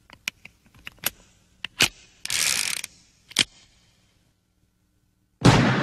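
Sharp metallic clicks of a revolver being handled, with a short ratcheting rasp in the middle. Near the end a synthwave track comes in loudly.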